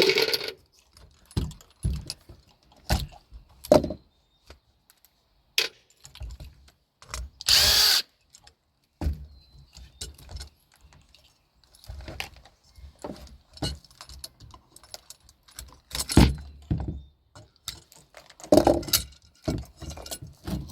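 Hand disassembly of an old Genie screw-drive garage door opener: scattered clicks, knocks and clanks of tools and metal parts being worked loose, with a brief harsher burst about eight seconds in.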